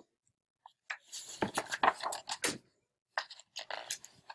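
Large hardcover picture book being opened and its pages flipped: paper rustling and soft knocks of handling, starting about a second in and broken by a brief pause.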